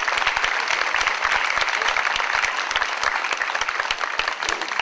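Audience applauding: a dense patter of many hands clapping that eases slightly near the end.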